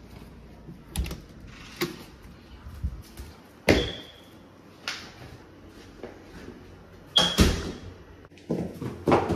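A door being opened, then a scattering of knocks and thuds, two louder ones about four and seven seconds in, as slippers are stepped into at the doorway. Near the end, quick footsteps in suede slippers going down stone stairs.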